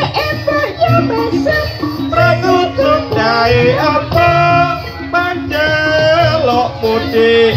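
Jaranan senterewe music: a singer holding and bending long notes over a steady drum beat and accompanying instruments.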